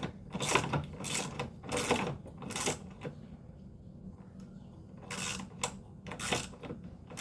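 Hand ratchet wrench clicking as a bolt is turned in short strokes, about two a second, then a pause and a few more strokes near the end.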